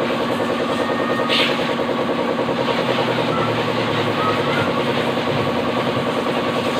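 Pressure washer running, its pump humming steadily with a fast pulsing beat while the water jet hisses against the engine bay.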